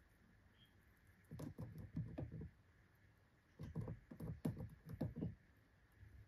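Guinea pigs moving about in their pen: two short bursts of soft, low scuffling and thumping, the first about a second in and the second halfway through.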